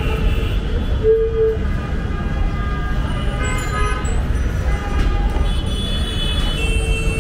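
Street traffic rumbling, with vehicle horns tooting: a short toot about a second in and longer horn tones in the second half.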